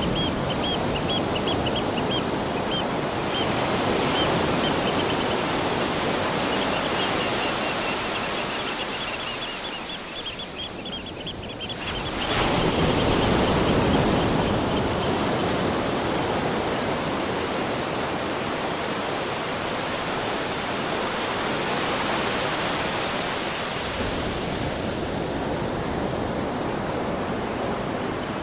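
Ocean surf washing steadily on the shore, swelling louder about twelve seconds in. For the first twelve seconds a rapid, evenly repeated high chirping runs over it.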